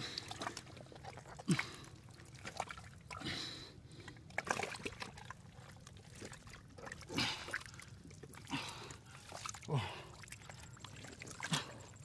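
Wet mud and shallow water being worked by hand: irregular squelches and splashes, a second or two apart, some with a quick downward swoop.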